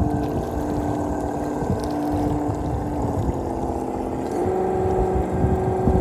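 Traxxas TRX-4 RC crawler's electric motor and geared drivetrain whining steadily as it crawls through shallow surf. The pitch steps up a little about four seconds in, over a low rumbling noise.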